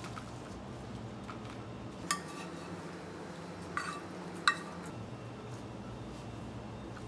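Three sharp metal clinks against a stainless steel mixing bowl as food is tipped and scraped in from a frying pan with a spatula: one about two seconds in, then two close together a couple of seconds later, the last the loudest. A low steady hum runs underneath.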